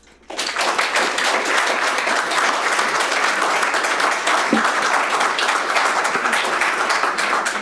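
Audience applauding at the end of a speech: a dense clapping that breaks out suddenly and holds steady.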